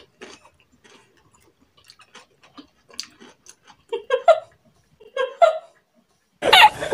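Eating sounds: scattered small clicks of chopsticks on bowls and plates, and chewing. A few short hummed vocal sounds come about four and five seconds in, then a loud burst of voices and laughter near the end.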